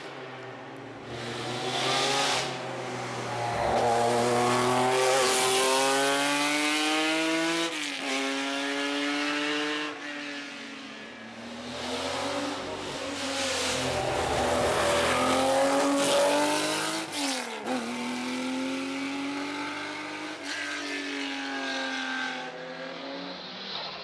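Rally car engine, not yet in sight, revving hard up through the gears as it approaches along the stage. The pitch climbs again and again, each climb cut short by a sudden drop at a gear change or lift, and the sound swells and fades as the car winds along the road.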